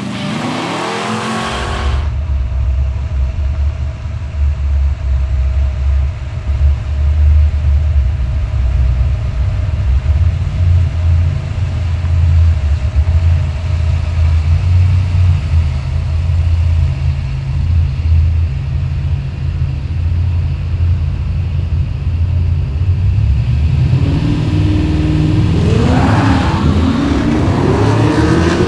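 Drag-racing cars' engines idling at the start line with a loud, uneven low rumble, after music fades out in the first two seconds. Near the end an engine accelerates hard, its pitch rising as the car runs down the strip.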